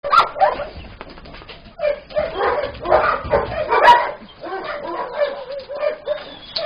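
Kennelled pound dogs barking and yelping, many calls overlapping with one another.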